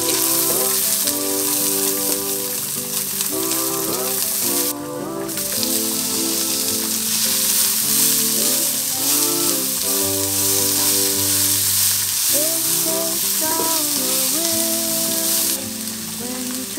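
Sliced garlic, and later sliced onion, sizzling as they are stir-fried in a nonstick frying pan, under background music with a melody. The sizzle cuts out briefly about five seconds in.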